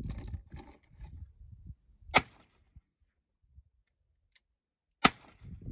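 Two handgun shots about three seconds apart, each a sharp crack with a brief ringing tail.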